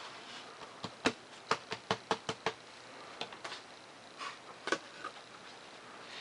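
Light taps and clicks from hands handling a foam-board model biplane: a quick run of about eight, then a few scattered ones.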